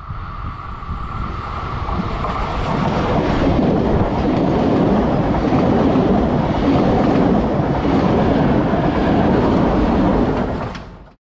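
A train running past on the line, growing louder over the first few seconds and then holding loud and steady with the rumble of its wheels on the rails. The sound cuts off suddenly near the end.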